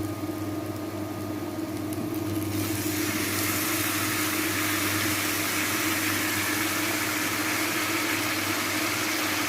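Chopped tomatoes sizzling in hot oil and masala in a frying pan, the hiss growing louder about three seconds in and then holding steady, over a constant low hum.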